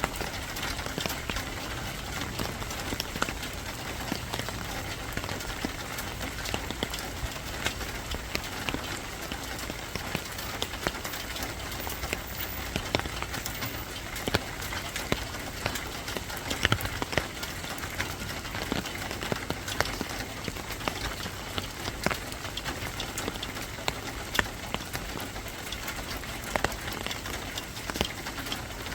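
Steady rain falling, an even hiss with many sharp drips and ticks of drops striking a surface scattered through it.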